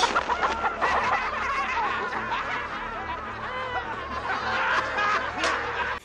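Film soundtrack of a crowd of goblin creatures laughing together over music. The sound cuts off suddenly at the end.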